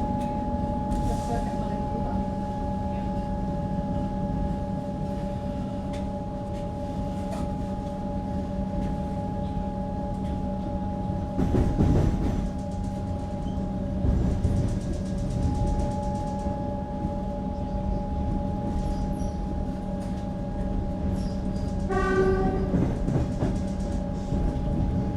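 EDI Comeng electric multiple unit heard from inside, with a steady whine of several held tones over a rumble of running gear. A louder rushing noise rises briefly about twelve seconds in, and a short pitched signal sounds about twenty-two seconds in.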